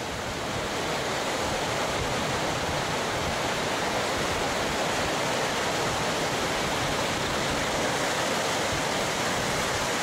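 Muddy floodwater rushing in a swollen river, a steady noise of turbulent water.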